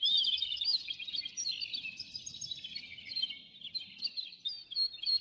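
Small songbirds chirping and twittering together: many quick, overlapping notes sliding up and down.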